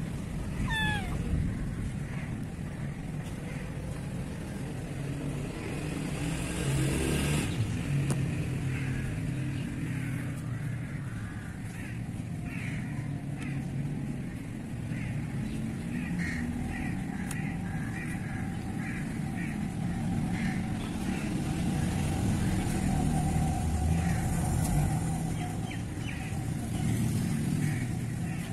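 Steady low rumble of motor traffic or an engine in the background, with many short, faint high chirps over it.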